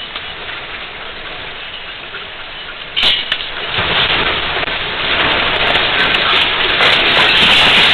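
Earthquake shaking picked up by a security camera's microphone: a steady noise without any tone, which jumps up suddenly about three seconds in and keeps growing louder.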